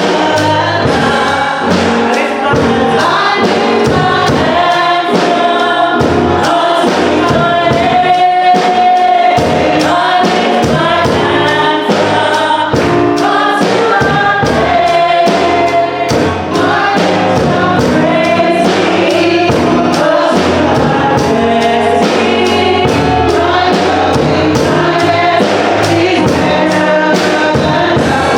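Gospel choir singing with musical accompaniment over a steady beat.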